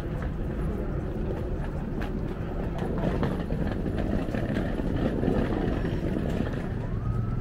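Steady low rumble of city street traffic, a continuous background of passing vehicles.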